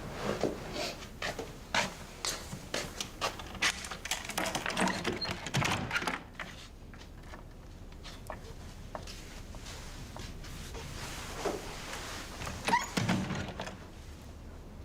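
A quick run of knocks and clicks for about six seconds, then quieter, with a few soft knocks and a thump near the end.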